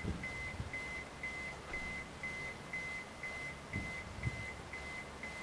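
Distant aerial firework shells bursting as low, dull thumps, a pair near the start and another pair about four seconds in. Behind them a high beep repeats steadily about twice a second.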